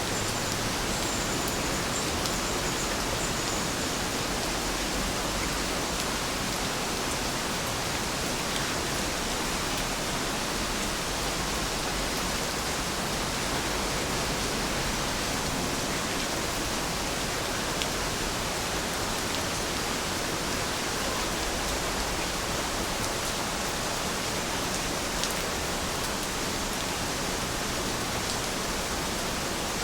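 Steady rain falling, a dense even hiss with an occasional sharper drop tick.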